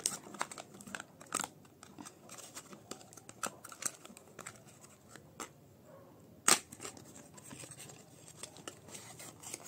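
Paperboard cosmetics carton being handled and opened by hand: scattered light clicks, rustles and scrapes of card, with one louder click about six and a half seconds in.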